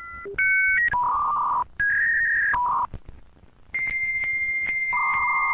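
Electronic beeps: a quick run of steady two-note tones that step in pitch, a short pause, then a long held beep that a lower second tone joins near the end.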